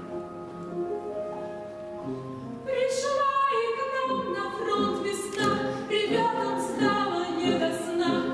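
Vocal performance of a song with instrumental accompaniment. Sustained accompaniment tones are heard first, then the singing comes in louder a little under three seconds in.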